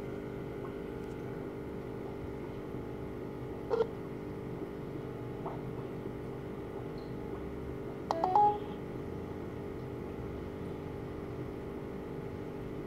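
Phone call on a Samsung Galaxy S2's speakerphone, waiting to connect: a steady line tone from the phone's loudspeaker, a short beep about four seconds in, and a brief burst of tones about eight seconds in as the call connects.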